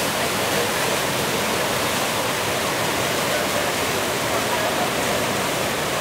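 Steady rush of fast whitewater: a tidal current running through standing waves at flood tide.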